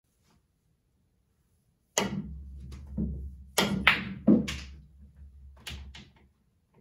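Pool balls in play, starting about two seconds in: sharp clicks of a cue tip striking two cue balls one after the other, a loud clack as the balls meet, and thuds as they drop into the corner pockets. Under the clicks runs a low rumble of balls rolling on the table.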